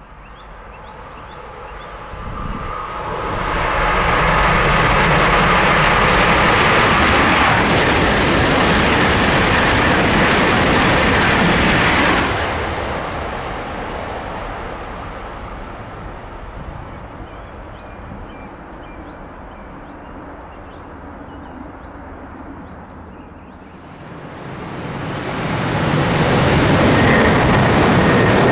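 High-speed electric passenger trains passing at speed on High Speed 1: one rushes past, building up over a couple of seconds and cutting off sharply about twelve seconds in. A second train approaches and grows loud near the end.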